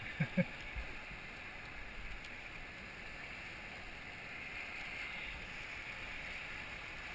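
Rushing river water, a steady hiss of current and whitewater around a raft. Two brief thumps come about a quarter second apart just at the start.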